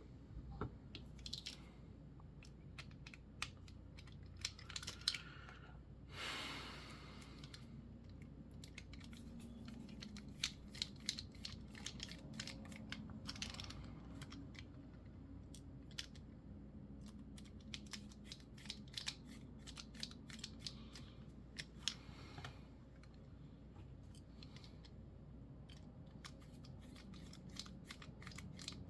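Faint, scattered small clicks and taps of metal parts being handled as an out-the-front knife is put back together, with a brief rustle about six seconds in.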